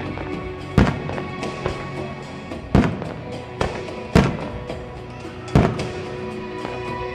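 Aerial fireworks shells bursting: four loud sharp bangs about every one and a half seconds, with a few fainter pops between, over music played with the show.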